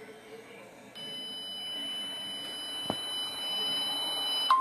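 Electronic emergency alert tone: a steady, high-pitched single tone with overtones that comes in about a second in and cuts off sharply near the end, with one faint click in the middle.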